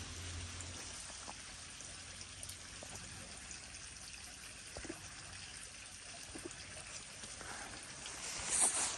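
Steady trickle of running water, with a few faint ticks and a short louder hiss near the end.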